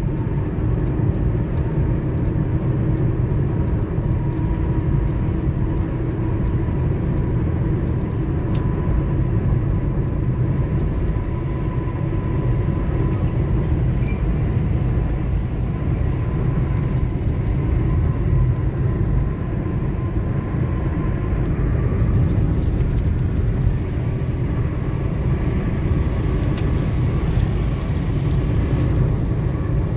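Steady cabin noise of a car cruising on a concrete highway: low tyre rumble and engine drone, with a faint rapid ticking for roughly the first eight seconds.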